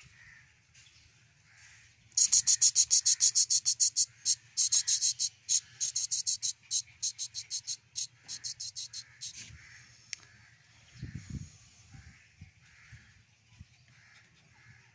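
A fast, even run of high-pitched insect-like chirps, about five a second, starting about two seconds in and fading out after about seven seconds.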